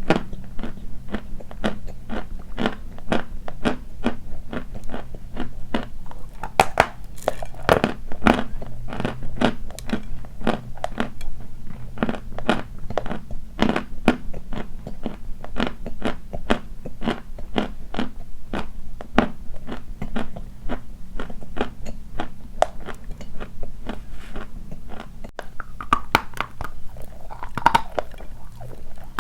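Dry white chalk being bitten and chewed, with crisp crunches following one another in quick succession.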